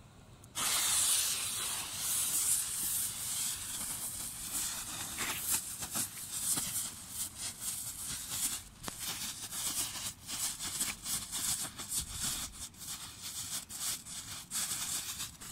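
Small firework ground fountains, lit together off one joined fuse, spraying sparks with a loud hiss. The hiss starts suddenly about half a second in and runs on with many sharp crackles through it.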